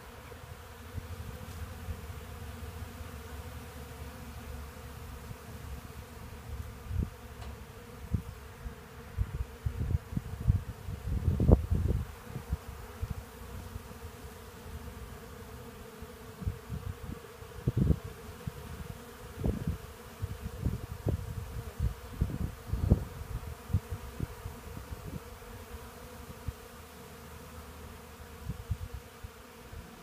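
Hundreds of honey bees buzzing as a steady hum while they forage on fresh black locust sawdust. Irregular low rumbles break in through the middle, the loudest about a third of the way in.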